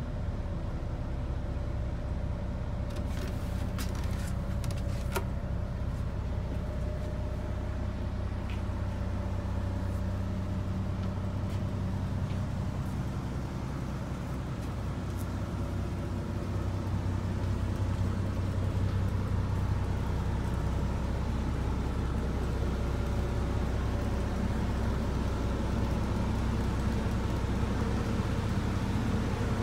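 Hino bus diesel engine idling steadily in neutral, heard from inside the passenger cabin, with a few sharp clicks about three to five seconds in.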